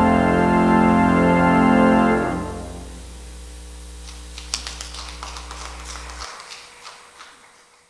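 Organ holding a full closing chord, released about two seconds in; the room's reverberation dies away while a low pedal note sustains a few seconds more and then stops. A scatter of small clicks and knocks follows as the sound fades out.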